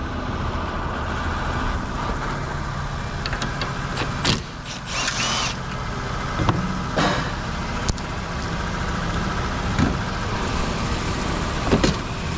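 A 2006 Infiniti M35's 3.5-litre V6 idling steadily with the hood open, its cooling fans and A/C compressor running, and no abnormal rattle. A few short, sharp clicks and knocks stand out over the idle.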